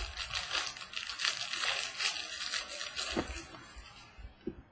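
Crinkling and rustling of a trading-card pack wrapper being handled, fading out after about three seconds, with a couple of short taps near the end.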